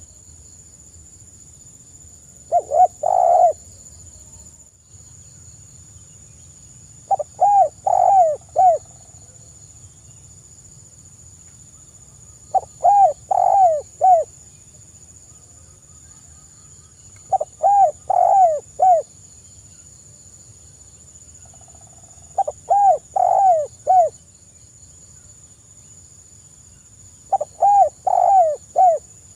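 Spotted dove cooing: six phrases of several notes each, repeated about every five seconds.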